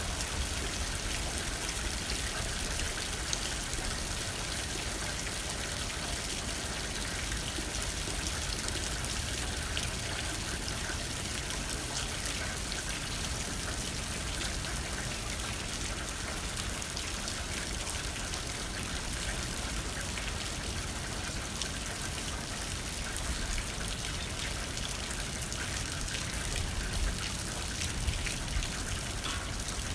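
Steady rain hitting a window, many small drops ticking on the glass, with light wind.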